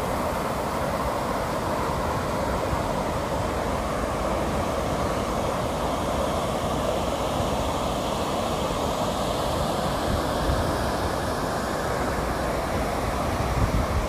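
Ocean surf: small waves breaking and washing up onto a sandy beach, a continuous rushing wash of water with a low rumble beneath.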